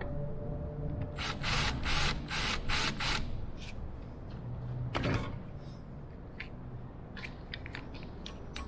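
Cordless drill running briefly, its bit scraping through a hole to spot a centre mark on the clamped piece below in a few short rasping bursts. A sharp knock follows, then small clicks from handling the clamp.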